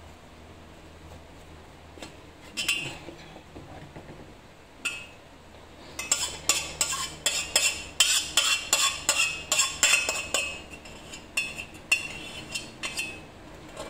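A spoon scraping and knocking against the inside of a stainless steel pot, emptying out the last of a semifreddo mixture. There are a few single clinks at first, then a quick run of metallic scrapes and knocks, about three or four a second, through the second half.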